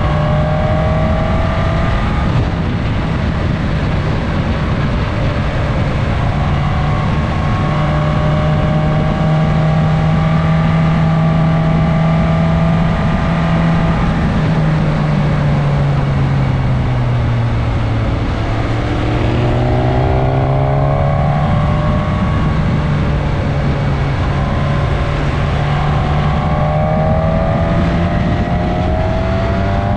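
Onboard sound of a Suzuki GSX-S1000S Katana's inline-four engine running steadily at cruising speed, with wind rush. The engine note sinks as the rider eases off just past the middle, then rises again as it picks up speed near the end.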